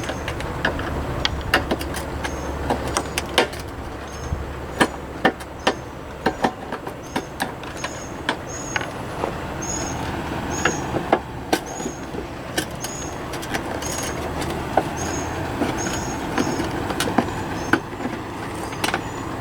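Phillips screwdriver backing out the screws that hold the latch to the metal face of a 1973–87 Chevy/GMC truck glove box door: irregular sharp clicks and ticks with short high squeaks. A steady low hum underneath stops about six seconds in.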